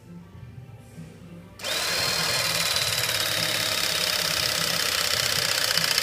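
Haupa battery-powered hydraulic crimping tool running its motor and pump to press a copper cable lug, starting about a second and a half in. It makes a steady high whine that sinks slightly in pitch as it goes.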